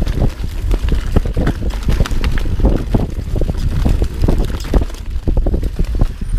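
Wind buffeting the chest-mounted camera's microphone while a Yeti SB6c mountain bike is ridden down rough dirt singletrack: a steady low rumble under constant quick rattles and knocks from the bike and tyres going over roots and rocks.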